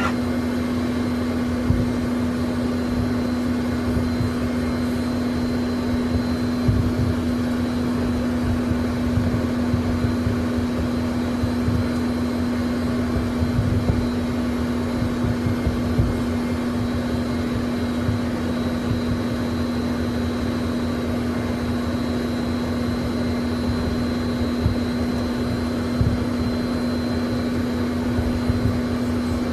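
Cabin noise inside a Learjet taxiing: the jet engines give a steady drone with a faint high whine over a low rumble, broken by a few soft thumps.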